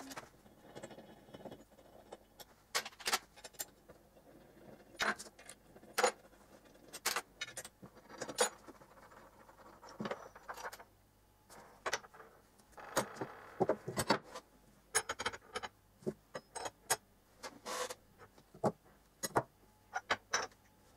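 Metal parts being handled on a workbench: irregular sharp clinks and knocks as aluminium plates, bolts and steel rods are picked up and set down.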